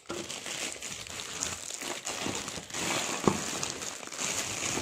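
Clear plastic wrapping crinkling as hands handle and turn a plastic-wrapped dinner plate, with a brief sharp click about three seconds in.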